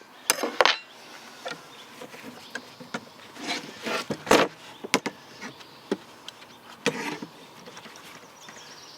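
Hand file scraping along the steel rails of a chainsaw guide bar in a few short strokes, with light clicks and taps of the metal being handled between them.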